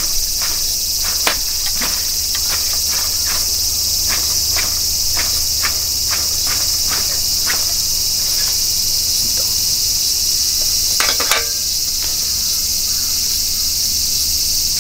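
A loud, steady insect chorus. Over it, a ferrocerium fire-starter rod is scraped with a metal striker in quick repeated strokes, about two to three a second for the first half, with a louder cluster of scrapes near the end as the wood shavings catch.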